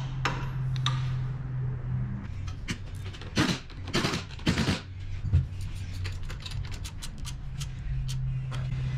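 Air impact wrench driving alternator mounting bolts in three short bursts about three and a half to five seconds in, followed by a quick run of clicks from a hand ratchet snugging a bolt.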